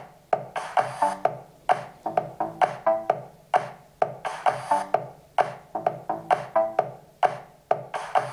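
Electronic music track with a drum-machine beat and short pitched notes, played by a small portable speaker shut inside a foam soundproofing box for a sound-level test.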